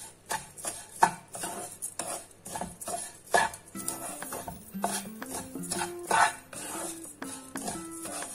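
Wooden spatula stirring dry desiccated coconut in a nonstick kadhai, scraping and knocking against the pan in short irregular strokes, the sharpest knock about a second in. Soft background music plays underneath.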